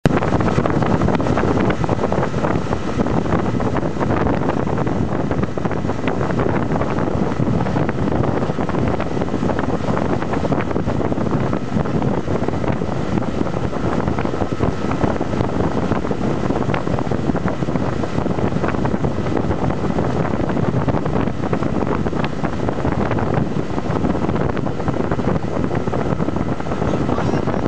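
Small fishing boat under way at speed: a steady engine drone mixed with water spraying off the hull and wind buffeting the microphone.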